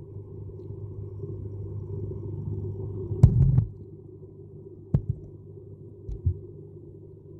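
Low, steady rumbling hum in a catfish pond, broken by a quick cluster of sharp knocks or pops about three seconds in and single ones about five seconds and six seconds in. The uploader puts these strange pond sounds down to catfish playing.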